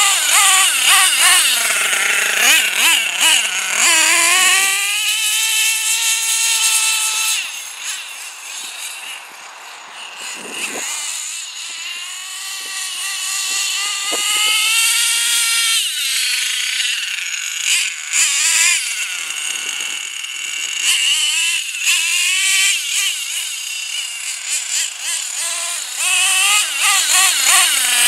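HPI F4.6 two-stroke nitro engine of a radio-controlled Traxxas T-Maxx monster truck revving up and down as the truck drives, its pitch rising and falling. It grows fainter about a third of the way in as the truck runs far off, then comes back louder.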